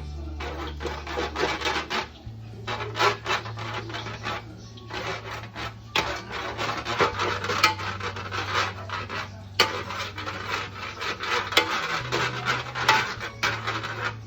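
Rapid, repeated scraping and rasping strokes of kitchen utensils against cookware during food preparation.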